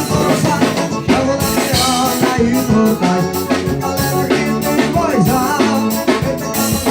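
Forró band music playing an instrumental passage between sung choruses, with a steady drum beat and a melody line.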